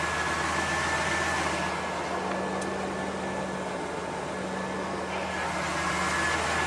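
A tow truck's engine running steadily with a constant low hum and a thin steady high whine above it.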